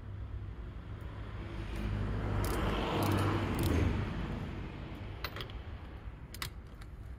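A car's noise swelling to a peak about three to four seconds in and then fading, as when a car passes, over a steady low hum, with a few light clicks.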